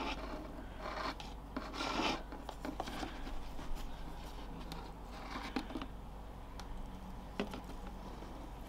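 Plastic handling noise: a drinking straw and a clear plastic cup rubbing and scraping against a plastic enclosure in short bursts, most in the first two seconds and again about five seconds in, with a few light sharp taps.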